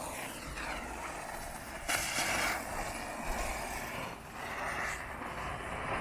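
Small disc-shaped fireworks lit on the ground hissing as they spray sparks, several going at once. A sudden louder burst comes about two seconds in.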